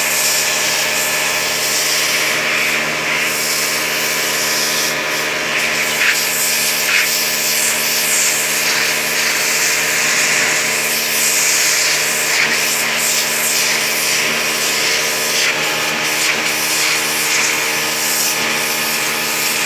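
Pressure washer running steadily: a constant motor hum under the hiss of the high-pressure water jet, which is blasting the scales off a fish.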